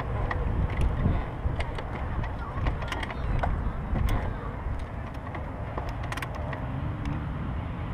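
Dirt bike ridden along a trail: a rough, low engine rumble with scattered sharp clicks and knocks, the engine's pitch climbing slightly near the end.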